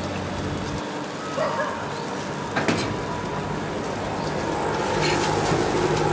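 Flat metal spatula scraping and tapping on a flat dosa griddle while spreading the topping across a dosa, over a steady low kitchen hum; a sharp tap about two and a half seconds in.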